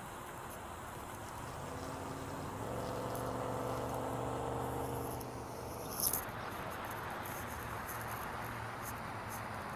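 Outdoor lakeside ambience: a distant engine hum swells for a few seconds and fades. A brief sharp crackle comes about six seconds in, followed by faint high ticks.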